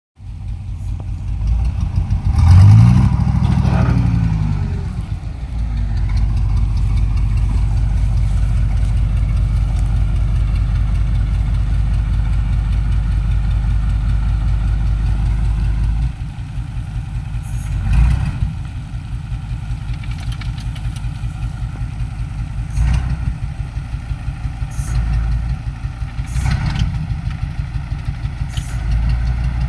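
A motor vehicle's engine revs up about two to four seconds in, then runs steadily. From about the middle on it goes with a regular pulsing rhythm and a single louder knock.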